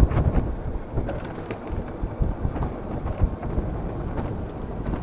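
Wind buffeting the microphone of a golf cart driving along a paved path: a steady rushing noise with uneven low thumps.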